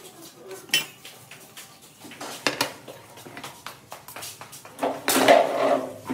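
Stainless steel serving spoon, bowl and divider plates clinking and clattering as food is dished out, in a few sharp clinks, then a louder, ringing clatter of steel about five seconds in.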